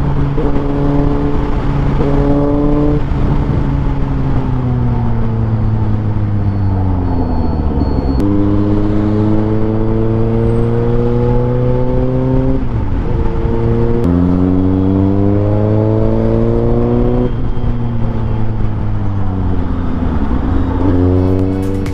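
Suzuki GSX-S750's inline-four engine through a MIVV Suono slip-on exhaust, being ridden: the revs climb and fall repeatedly, with several abrupt jumps in pitch at gear changes.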